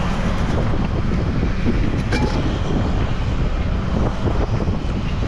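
Wind buffeting the microphone, with choppy sea water around a small open boat.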